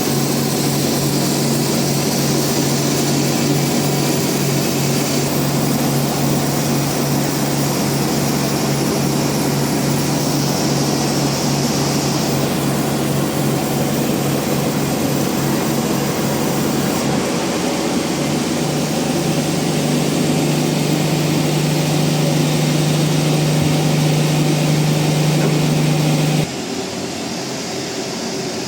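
Band sawmill running with a steady low mechanical drone, dropping abruptly in level a couple of seconds before the end.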